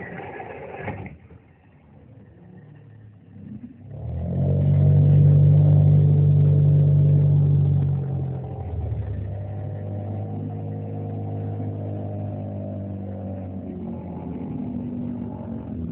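A vehicle motor running at a steady pitch. It drops away from about one to four seconds in, comes back loudest for about four seconds, then carries on a little quieter.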